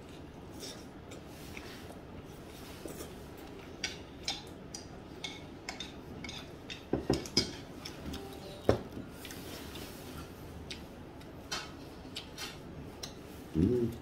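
Chopsticks, spoons and dishes clinking on a restaurant table during a meal: scattered light clicks, with a few louder knocks about seven to nine seconds in and a brief low sound near the end.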